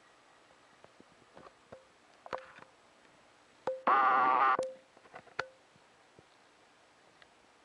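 A short toot, under a second long, from a 7¼ inch gauge miniature railway locomotive's whistle about four seconds in, over faint scattered clicks.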